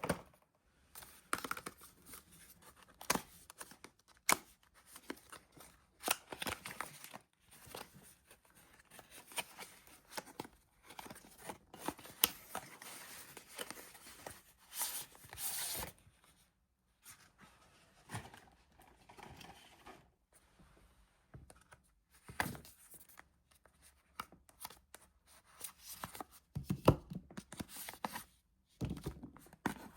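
Soap packaging being torn open and crinkled: irregular papery tearing and rustling with sharp little clicks, broken by short quiet gaps.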